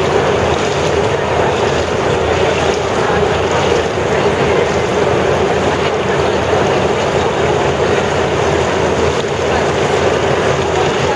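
A steady, loud rushing of moving air, with no breaks or changes in level.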